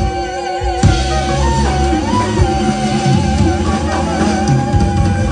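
Live close-harmony vocal group: female voices holding a long note with vibrato over a band of guitar, drum kit and double bass. The drums and bass fill in about a second in.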